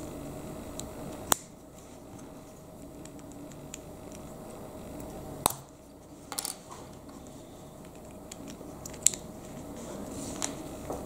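Plastic Lego bricks being pressed and snapped together by hand: a few sharp, separate clicks several seconds apart, with a short cluster of small clicks in the middle.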